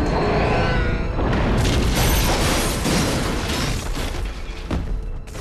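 Action-film soundtrack: music over booming and crashing destruction sound effects.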